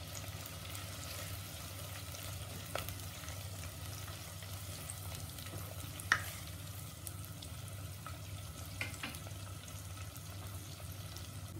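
Sliced onions sizzling in hot oil in a handi while being stirred with a wooden spatula. A few sharp knocks come through, the loudest about six seconds in.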